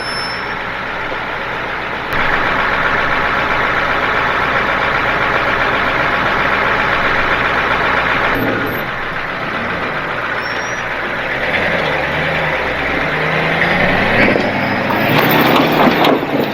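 Truck engine running under load. It gets louder about two seconds in, then its pitch climbs from about halfway through as it works harder.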